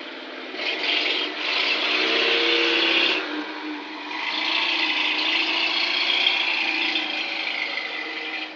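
Exhaust of a 1964 Opel Rekord A heard close to the tailpipe: a rough, rushing exhaust noise over the engine note, loud in two long stretches, the first starting about a second in and the second about four seconds in. The engine note rises around two to three seconds in as the engine is revved.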